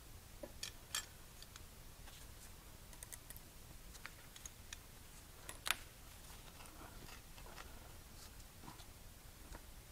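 Faint, scattered clicks and clinks of a hand tool working on the metal of an engine, with one louder click about five and a half seconds in.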